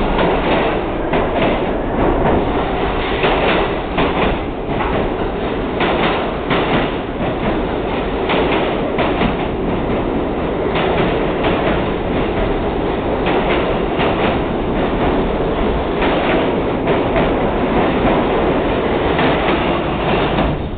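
R68A subway train accelerating out of an underground station and passing close by, a loud steady rumble of wheels on rail with repeated clacks as the wheels cross rail joints.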